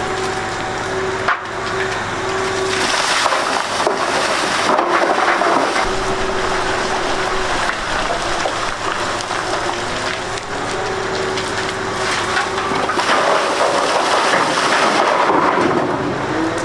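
Heavy earthmoving machine at work: a loud, continuous, grainy crackling noise with a faint engine tone that comes and goes.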